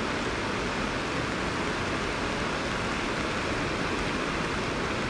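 Steady rushing of a flooded, muddy river in spate, an unbroken wash of water noise with no distinct splashes.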